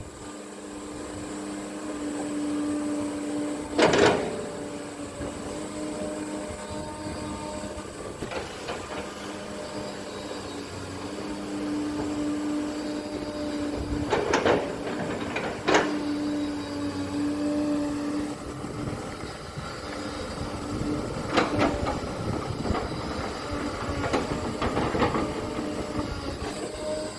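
Caterpillar 320D hydraulic excavator running under load with a steady engine and hydraulic drone, punctuated by about five loud sharp clanks or knocks, the loudest about four seconds in.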